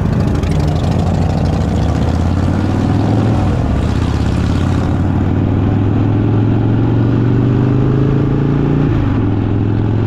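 Motorcycle engine and exhaust running under way, with wind and road rush on the microphone. The engine note climbs slowly as the bike gathers speed, then drops about nine seconds in.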